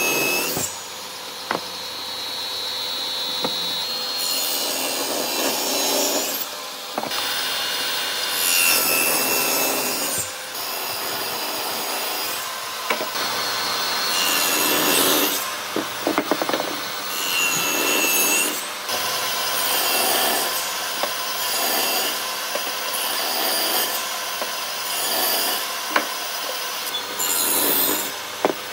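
Wood being sawn, with repeated rubbing strokes, in short stretches that change abruptly every few seconds.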